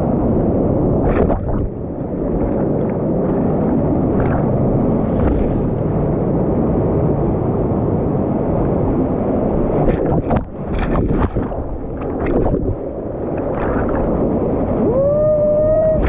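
Rushing, gurgling water washing around an action camera as it rides the current of a water-park wild river, with scattered splashes. Near the end comes a short held call, pitched like a voice.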